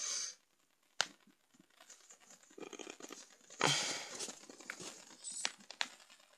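Handling noise from a phone held close to its microphone. A sharp click about a second in, then scattered rustling and crinkling with a few more short clicks near the end.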